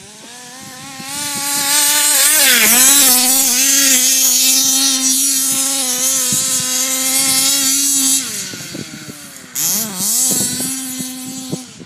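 Small two-stroke petrol engine of a large-scale RC baja buggy running at high revs, a steady buzzing note with a hiss over it. The pitch dips and recovers about two and a half seconds in, falls away after about eight seconds, then winds up again briefly near the end.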